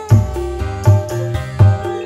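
A live dangdut band plays an instrumental passage with no singing. A keyboard holds melody notes over deep drum beats, three in the two seconds.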